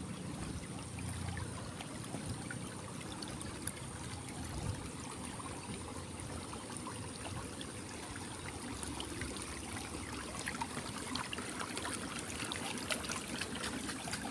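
Water running and trickling steadily along a narrow stone-lined irrigation ditch.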